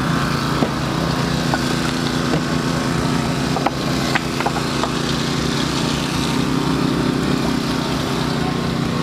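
Small gasoline engine of a hydraulic rescue-tool power unit running steadily at a constant speed. A couple of sharp metallic clicks come about four seconds in.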